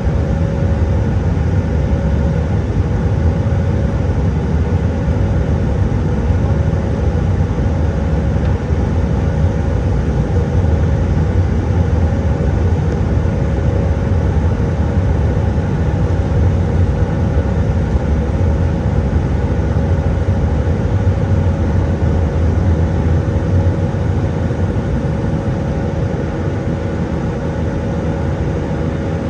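Steady drone inside the cabin of an Airbus A320-200 in flight: engine and airflow noise with a low rumble and a constant hum, holding even throughout.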